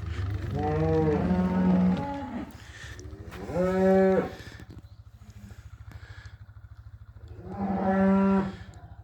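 Cattle mooing three times: a long, wavering moo followed by two shorter ones, with a steady low hum underneath.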